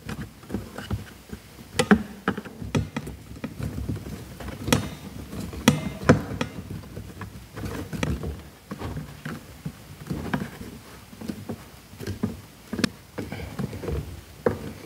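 Irregular clicks and taps of a metal wire fan guard and small screws being handled and turned in with a hand screwdriver against a hard plastic toolbox wall.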